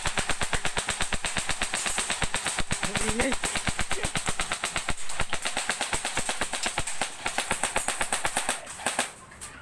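M4-style rifle firing on full automatic, a rapid even string of shots at about ten a second, with a brief break partway through, then stopping about nine seconds in.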